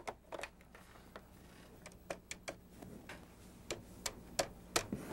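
Telephone handset clicking down onto a desk phone and being picked up again, then the keys of a push-button desk phone pressed one by one: a string of separate sharp clicks from about two seconds in.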